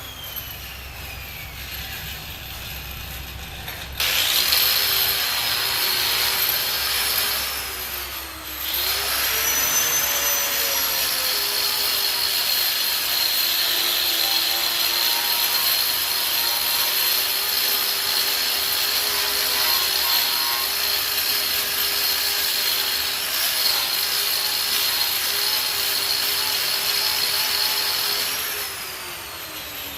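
Angle grinder working rust scale off a steel table. It winds down at the start, starts abruptly about four seconds in, runs with a high whine that sags and recovers near nine seconds under load, then spins down with falling pitch near the end.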